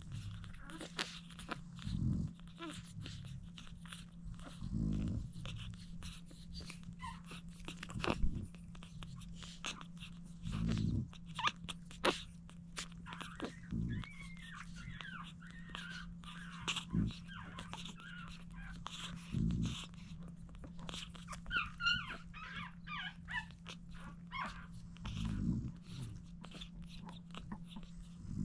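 Newborn French bulldog puppies nursing: wet suckling clicks and smacks, with thin squeaks and whimpers, in two small clusters past the middle. Low breathy puffs come every two to three seconds over a steady low hum.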